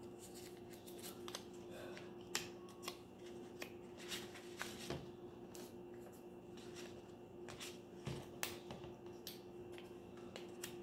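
Faint rustles and scattered light taps of small construction-paper squares being handled and pressed onto a paper plate, over a steady faint hum.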